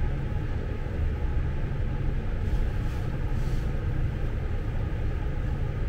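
Steady low background rumble, with a few faint rustles and small clicks as wheelchair drive-unit parts are handled by hand.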